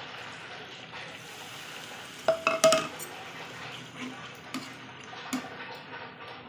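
A slotted metal spatula stirs pork pieces in a metal kadai over a steady frying sizzle. A cluster of sharp, ringing clanks of the spatula against the pan comes about two and a half seconds in, followed by a few lighter knocks.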